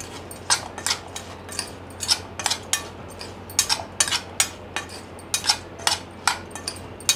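Metal spoon stirring fried chickpeas in a bowl, knocking and scraping against the bowl in irregular clinks, about two a second.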